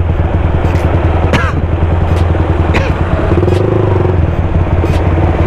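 Motorcycle engine running steadily while underway, with a dense rush of road and wind noise. A few brief sharp sounds ride over it, the loudest about a second and a half in.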